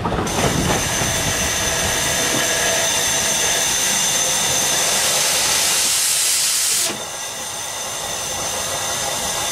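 Steam locomotive standing at the platform, hissing steam loudly around its cylinders, with a high whistling edge to the hiss. About seven seconds in the highest part of the hiss cuts off suddenly, leaving a quieter hiss that slowly builds again.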